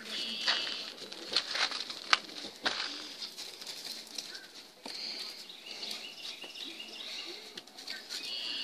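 Scattered knocks and crunching, shuffling steps, with short high-pitched squeaks now and then.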